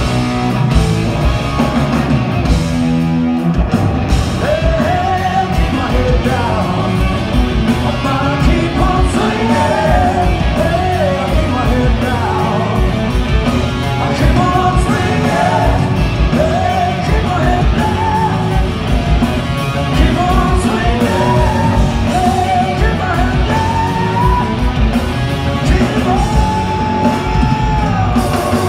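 Rock band playing live: a singer over electric guitar, bass and drums, with a long held note near the end.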